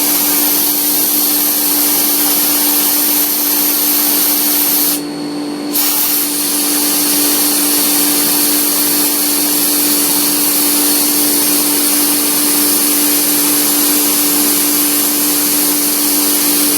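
Small CNC mill cutting a slot in a titanium pen tube with an eighth-inch end mill: a steady spindle hum under a loud air-blast hiss that cools the cut. The hiss cuts out briefly about five seconds in, then carries on.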